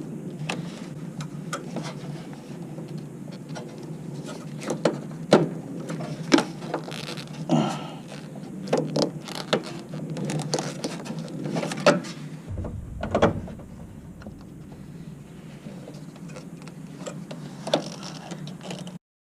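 Irregular metallic clicks, clinks and knocks of hand tools being worked on the car, over a steady low hum.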